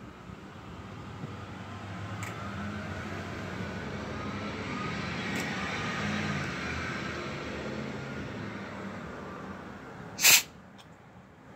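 A passing vehicle, its engine and road noise swelling over several seconds and then fading. About ten seconds in comes a short loud hiss, the loudest sound.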